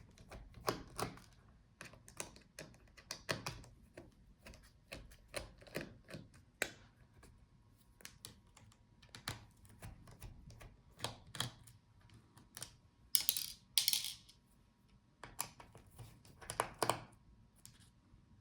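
Small screwdriver working the screws that hold a laptop battery in: irregular light clicks and ticks of the bit and screws against the laptop's internal frame, with a brief hissing scrape about two-thirds of the way through.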